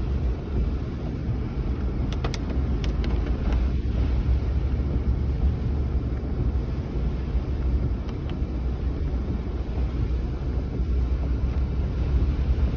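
Steady low rumble of storm wind and rain on a car, heard from inside the cabin, with a few sharp ticks about two to three seconds in.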